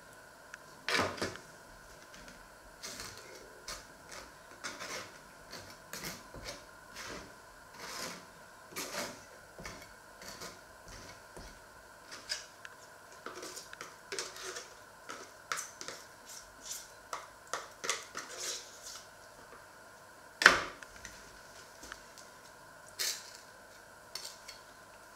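Table knife scraping soft spread out of a plastic tub and spreading it over slices of bread: an uneven run of short scrapes and light taps, with a sharper knock about a second in and the loudest knock about twenty seconds in.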